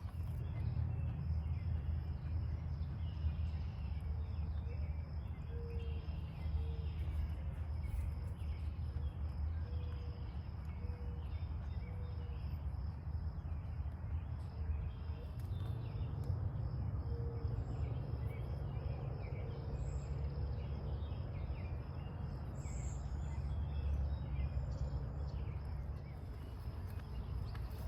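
Outdoor nature ambience: a steady low rumble, a constant high insect drone, and scattered bird chirps, with a run of short, low call notes repeated through the first half.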